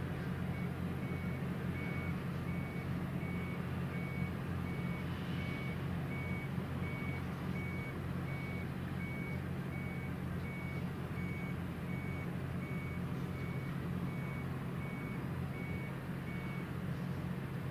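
A warning beeper like a reversing alarm, sounding a long series of short, evenly spaced high beeps, over a steady low machinery drone. The beeping starts about half a second in and stops about a second before the end.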